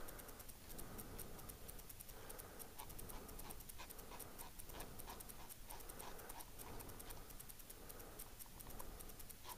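Faint panting breaths, rising and falling about once a second, over a fast, faint ticking.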